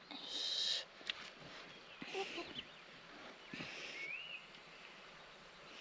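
Faint chicken calls: a few short, hissy squawks and a brief rising-and-falling chirp about four seconds in.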